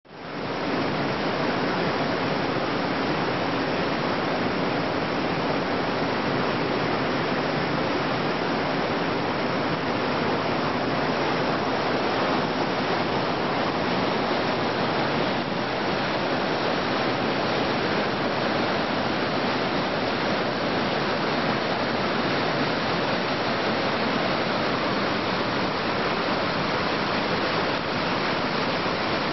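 River rapids rushing: a steady whitewater noise that comes in out of silence at the very start.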